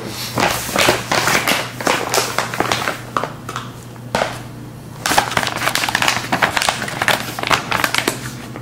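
Rustling and crinkling of a product packaging pouch being handled, in irregular bursts with a quieter pause of about a second a little past midway.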